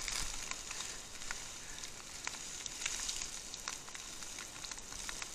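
Heavy rain falling as a steady hiss, with scattered faint ticks of drops striking close by.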